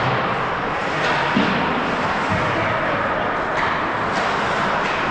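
Ice hockey rink din during play: a steady wash of skating, crowd and player noise in a large hall, with a few sharp knocks.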